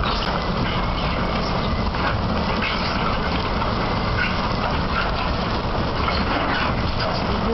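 Bucket wheel excavator at work, its wheel and buckets digging and tipping sand: a steady, dense machine noise with short high squeaks now and then.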